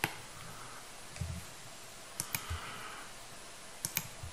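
Scattered clicks of a computer mouse and keyboard: a single click at the start, a quick cluster of three a little past two seconds and two more near the end, with a couple of soft low knocks between, over faint room hiss.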